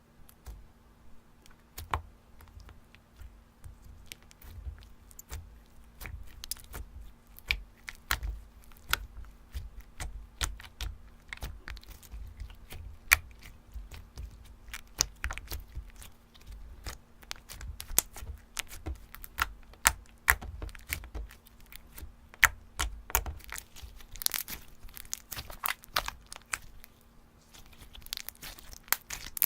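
Slime being squished and stretched by hand, giving a dense, irregular run of small pops, clicks and crackles, busiest near the end. A faint steady hum lies underneath.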